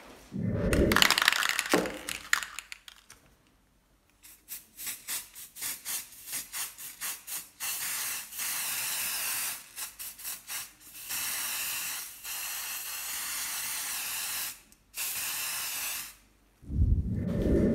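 Aerosol spray paint can spraying red paint onto a trowel blade: a run of quick short spurts, then several longer steady sprays of a second or two each. A louder, fuller handling noise comes near the start and again at the very end.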